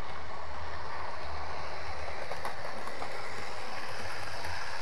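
00 scale model trains running on the layout: a steady hum and rattle of small motors and wheels on the track, with a few faint ticks.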